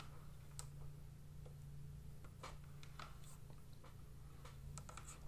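Faint, irregular taps and scratches of a pen writing on a tablet, over a steady low electrical hum.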